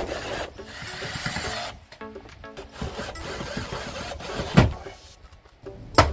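Cordless drill-driver running against a door as it is screwed onto its hinges, with a sharp knock about four and a half seconds in. Background music plays underneath.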